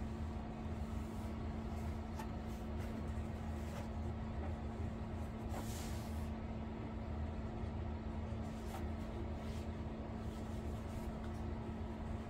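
A steady low hum with room noise, and faint soft rustles of dyed cross-stitch fabric being handled and laid flat on a wooden table, a little louder about six seconds in.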